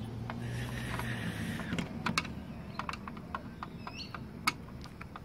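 Screwdriver turning a screw in the sheet-metal case of a PC power supply: a scattered run of small clicks and ticks as the tip works in the screw head.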